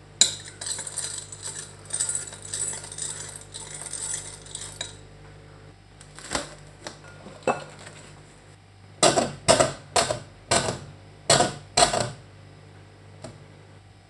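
A spoon stirring dry popcorn kernels and salt in a glass bowl: a rapid scraping rattle for about five seconds. Then plastic cling film is pulled and stretched over the bowl, with a few clicks and then six sharp crackles.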